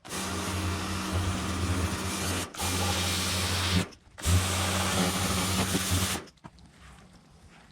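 Power tool spinning an abrasive stripping web against aluminium outboard motor parts, scrubbing off the old paint: a steady motor hum under a scouring noise. It breaks off briefly twice and stops a little after six seconds in.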